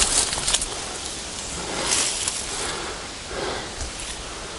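Rustling of brush and dry branches, with a few light cracks near the start and soft rustling swells later on.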